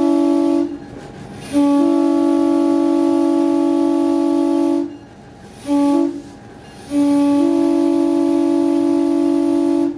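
GP9 diesel locomotive's multi-chime air horn sounding a chord in the grade-crossing pattern: a long blast ending just after the start, another long blast, a short one, and a final long blast that stops near the end.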